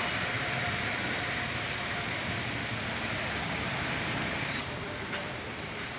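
Garib Rath Express passenger train running along a station platform: a steady rumble and rush of wheels on rail, with a few faint clicks about five seconds in.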